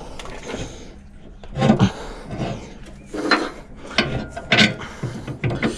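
Steel parts of a tractor's three-point linkage and a rotary tiller's hitch brackets scraping and rubbing together as they are lined up by hand, with several sharp metal knocks.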